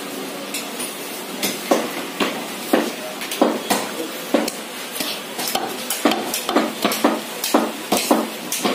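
Irregular sharp knocks and clacks of butchery work, about two or three a second: blades chopping through goat meat and bone and striking wooden chopping blocks.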